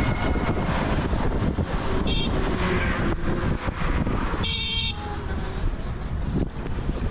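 Wind rumble and traffic noise while riding in an open-sided auto-rickshaw along a highway, with short vehicle horn toots about two seconds in and again about four and a half seconds in.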